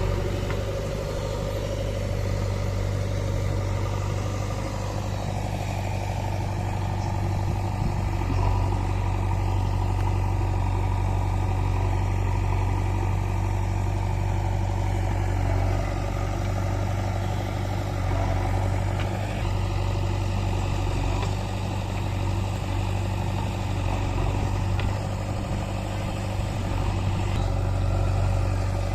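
Heavy diesel machine engine running steadily, with a constant low hum.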